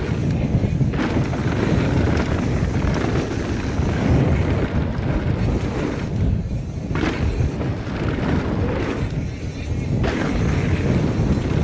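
Mountain bike riding fast down a dirt trail: wind rushing over the microphone with tyres rolling and the bike rattling and knocking over bumps, a couple of harder hits among them.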